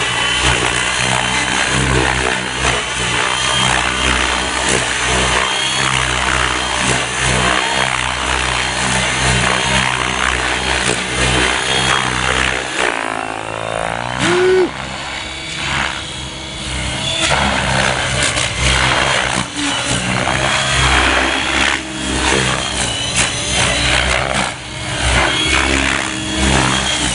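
Gaui X7 electric RC helicopter flying 3D manoeuvres at low head speed: the drive whine and the chop of the rotor blades swing up and down in pitch as the load changes, with a sweeping change in the sound about thirteen seconds in.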